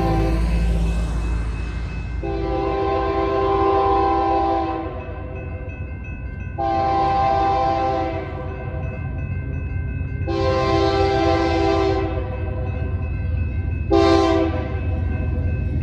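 Multi-chime air horn of an approaching BNSF diesel freight locomotive. A blast ends just at the start, then three long blasts and one short one near the end, the horn pattern for a grade crossing, all over a steady low rumble from the train.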